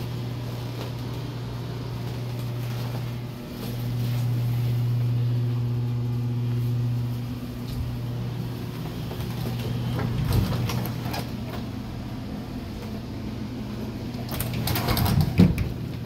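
Steady low machine hum that swells for a few seconds about three seconds in, then settles back. A single knock comes past the middle, and a cluster of louder knocks and clatter comes near the end.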